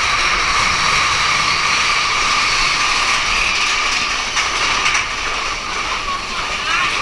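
Big Thunder Mountain Railroad mine-train roller coaster running on its track: a steady, loud noise of wheels and track.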